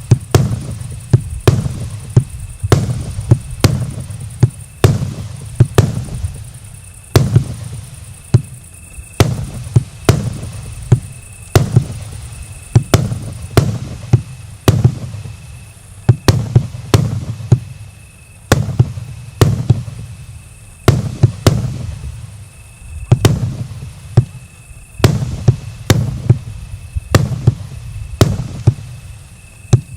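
Firework battery (cake) firing shot after shot: a continuous string of sharp bangs, about one to two a second, some coming in quick pairs, each with a short low rumble after it.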